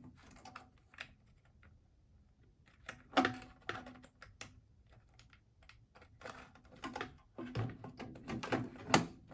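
Irregular plastic clicks and light knocks as cable connectors are plugged into a Zebra ZT400-series printer's replacement control panel and the panel is handled. The loudest clicks come about three seconds in and in a cluster near the end.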